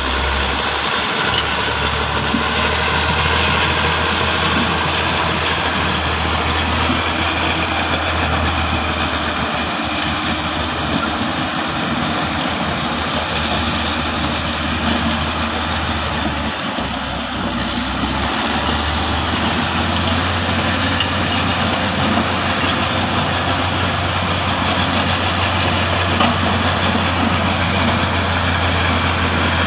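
Heavy earthmoving machines' diesel engines running steadily: a crawler bulldozer, then a single-drum vibratory road roller. A constant low hum sits under a broad rumble, dipping briefly a little past halfway and then coming back stronger.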